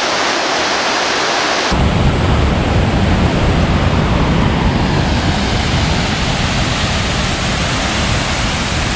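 Waterfall running full after days of rain, a loud, steady rush of water over rock. About two seconds in the sound changes abruptly and takes on a deep rumble.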